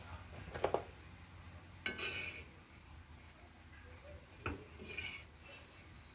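Metal spoon scraping and tapping on a griddle while pressing and folding a rice-flour pitha, a few short clinks and scrapes a second or two apart.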